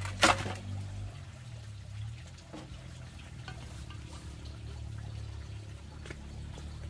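Water trickling and splashing, with one sharp hit just after the start, over a steady low hum.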